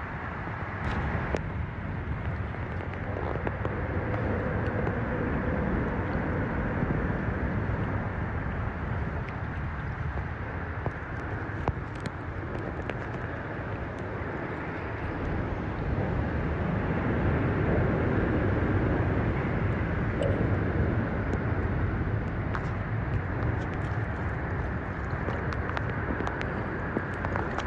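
Loud, steady noise of interstate highway traffic crossing the twin bridges overhead, heard from beneath the decks. It swells for a few seconds past the middle.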